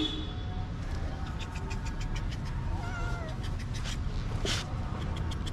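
Domestic cat meowing: a short call at the start and a longer, wavering meow about three seconds in, from a stray cat begging for food.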